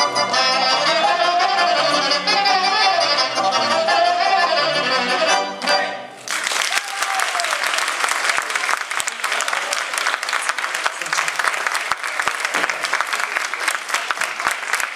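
Banat folk dance tune played by a band with accordion and saxophone, ending abruptly about six seconds in. Steady audience applause follows.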